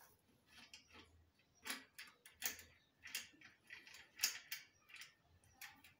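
Light, irregular clicks and taps of a bicycle V-brake arm and its rubber brake shoe being handled and pushed against the wheel rim.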